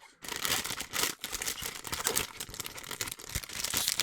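Crinkly plastic blind-bag packaging being handled and pulled open close to the microphone: a dense, continuous crackling and rustling, broken by a short pause about a second in.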